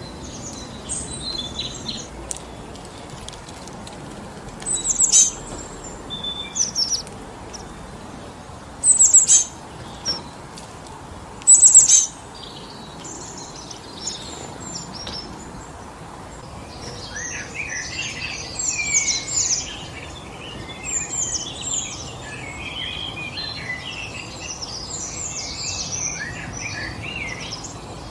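Songbirds calling over a steady rush of wind through forest trees. Three loud, short, high calls fall in pitch in the first half, then many birds chatter together in the second half.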